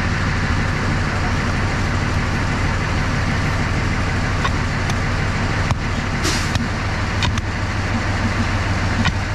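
TU7A diesel locomotive engine idling steadily, with a few sharp clicks and a brief hiss about six seconds in.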